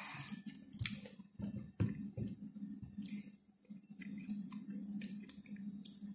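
A person chewing chocolate cake with the mouth, with a few sharp smacking clicks, over a steady low hum.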